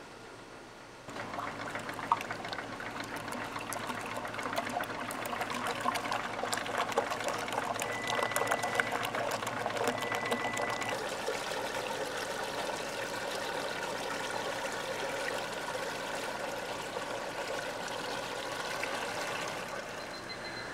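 Liquid ice cream mix pouring and splashing into the hopper of an Emery Thompson batch freezer, starting suddenly about a second in and running on as a steady trickle with many small splashes.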